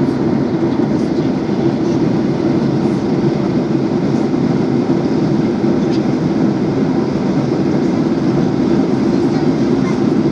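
Steady cabin noise of an airliner in flight: an even, unbroken rushing of engines and airflow heard from inside the plane.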